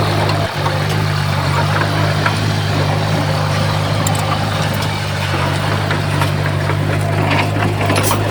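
Heavy diesel engine of earthmoving machinery running at a steady speed, with a few light clicks and clanks over it.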